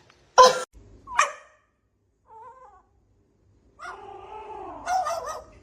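A dog barking twice, sharply and briefly, then a faint short call and a longer wavering whine near the end.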